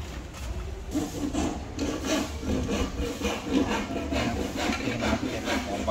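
Repeated rough scraping strokes, about two to three a second, like something being rubbed or filed.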